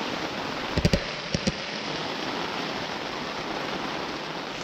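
Heavy rain falling steadily on a tent, an even hiss without let-up. A few sharp clicks come in two quick groups about a second in.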